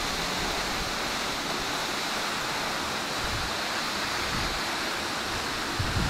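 A roughly 30 m plunge waterfall pouring down a near-vertical rock wall, heard from its foot as a steady, even rush of falling water and spray.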